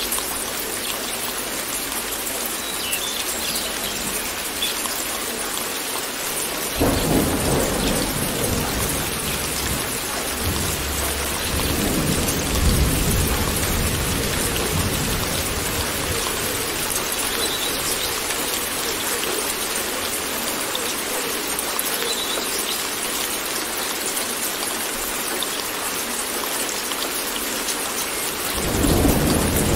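Steady rain with rolling thunder. A long low rumble starts about a quarter of the way in, swells again a few seconds later and dies away, and another rumble begins near the end.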